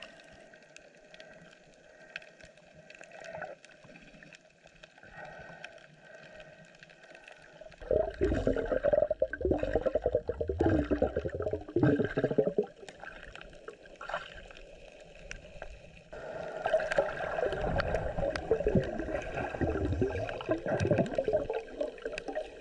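Water gurgling and bubbling around an underwater camera, in two loud spells starting about eight seconds in and again about sixteen seconds in, with a faint steady hum in between.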